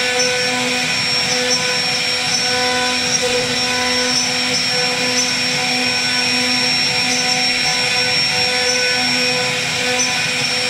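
CNC router spindle running at speed, its bit carving a wooden door panel: a steady high whine in several pitches over the hiss of the cut.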